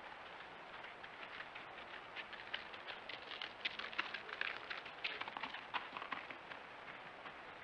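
Porcupine footsteps crunching in snow close to the microphone: a quick, irregular run of crunches that builds up, is loudest in the middle as the animal passes, and thins out near the end, over a steady faint hiss.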